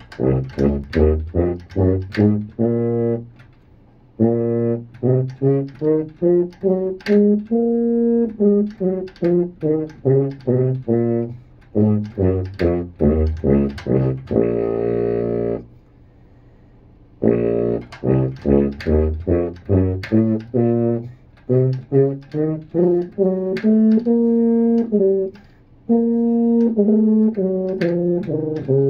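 Tuba playing scales: strings of short, separately tongued notes stepping up and back down in pitch, in several phrases with brief pauses between them.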